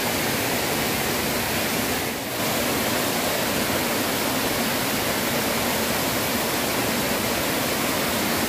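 Small waterfall pouring over a stone weir into a river pool: a steady rushing of falling water, dipping briefly about two seconds in.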